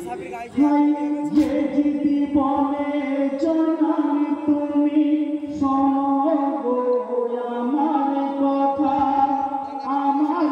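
A group of men singing a Bengali marsiya, a mourning elegy, together in long held notes that step slowly from pitch to pitch. A single sharp knock comes about a second and a half in.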